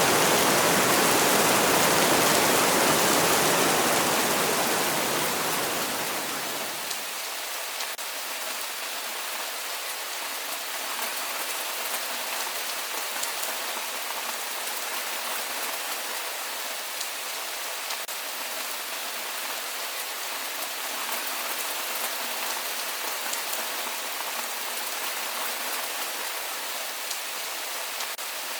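Steady rainfall: an even hiss with scattered small drop ticks. For the first six or seven seconds a louder, deeper wash of water sits over it and fades out.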